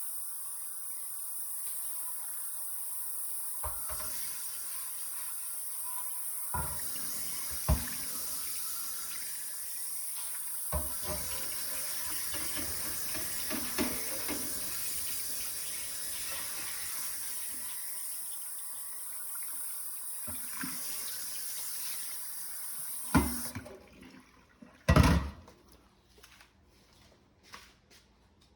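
Tap water running into a sink while a cast iron Dutch oven lid is scrubbed with a steel wool soap pad, with a few sharp knocks of the iron against the sink. The water is shut off about 23 seconds in, followed by a louder knock and a few small clicks.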